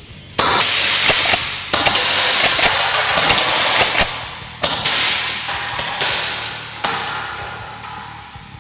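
Secutor Velites G-III green-gas airsoft shotgun firing four shots in its three-BB-per-shot mode. Each shot is a sudden sharp report that dies away over about a second, with sharp clicks and taps between the shots.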